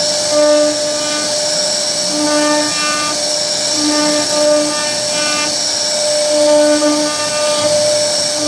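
CNC router spindle running steadily with a high whine as its bit carves a scroll pattern into a wooden door panel, with a lower tone that starts and stops every second or so.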